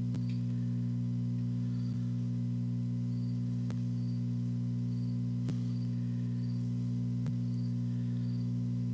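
Steady electrical hum with several low tones, unchanging throughout. A faint high chirp repeats about once a second, and a faint tick comes every couple of seconds.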